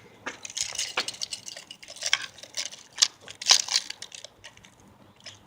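A bunch of metal keys jingling and clinking in irregular sharp clicks as they are handled.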